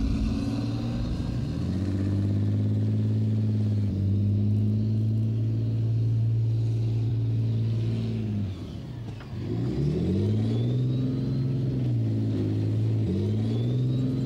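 Challenger 1 tank's Rolls-Royce CV12 turbocharged diesel engine revving under load. Its note climbs and holds steady, drops away briefly about eight to nine seconds in, then revs back up.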